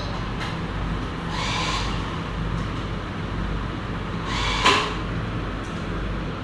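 A steady low hum, with two brief faint higher sounds and a sharp click about four and a half seconds in.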